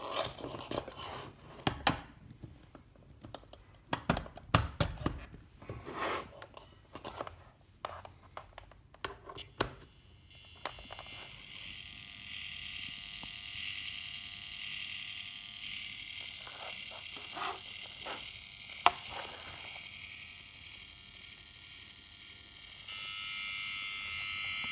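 Clicks, knocks and rattles of plugs and leads being handled, then a steady electrical buzz with hiss. The buzz is mains interference from a running washing machine, and it grows louder near the end.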